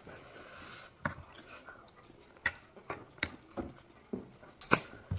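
Eating sounds from a mouthful of ramen: a soft noisy stretch at first, then about seven sharp clicks and smacks at uneven intervals, the loudest near the end.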